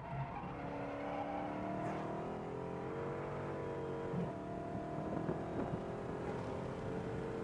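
Dodge Charger Hellcat's supercharged 6.2-litre V8 at full throttle, heard from inside the cabin, its engine note rising steadily as the car gains speed. About four seconds in there is a brief knock and the pitch steps down as the automatic gearbox upshifts, then it climbs again.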